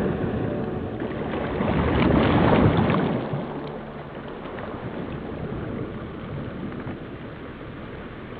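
Rushing, wind- or surf-like noise that swells about two seconds in, then eases off and fades toward the end.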